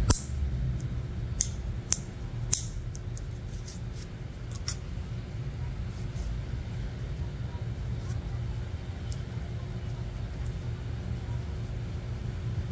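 Steel nail clipper and nail nipper snipping a toenail: a few sharp clicks in the first five seconds, the loudest at the very start, then fainter ticks. A steady low hum runs underneath.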